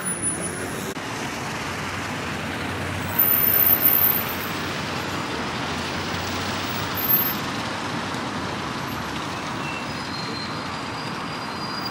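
Steady city road traffic noise, the even hum of passing vehicles, swelling louder for about a second around three seconds in.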